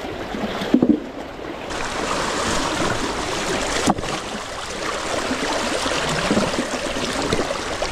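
Fast-flowing river water rushing and splashing around a large stone that is being rolled and pushed into the current by hand. A sharp knock comes about four seconds in.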